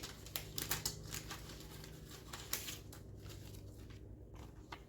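Parchment paper squares being pulled from a stack and handled: light, scattered rustling and crinkling with small taps.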